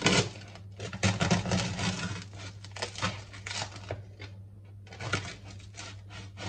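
Knife sawing through the crisp baked crust of a bread roll, the crust crackling and crunching with each stroke, in three spells with short pauses between them.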